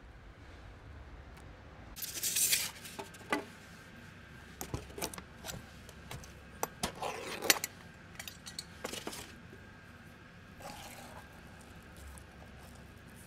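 A metal tin can being handled and opened, with sharp metallic clinks and scrapes of a spoon against the can. There is a louder rustling scrape about two seconds in, and the sharpest clink comes about halfway through.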